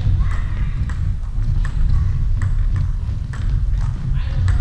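Table tennis ball clicking off bats and table in a rally, about one hit every three-quarters of a second to a second, with voices in a large sports hall.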